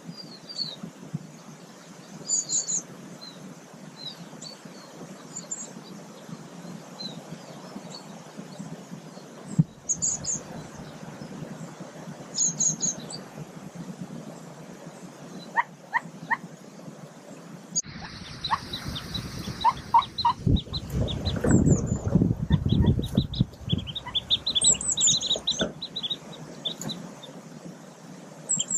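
Short high bird chirps every few seconds. About two-thirds of the way through, dry twigs and leaf litter rustle and crackle loudly for several seconds as a mallard hen shifts on her ground nest, with a quick run of peeps over the rustling.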